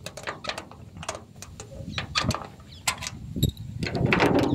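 Handling noise from a phone being moved about and brushing against a shirt: irregular clicks, knocks and rustles, thickest about four seconds in.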